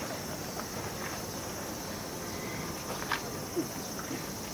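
Steady high-pitched insect drone, with a faint click about three seconds in.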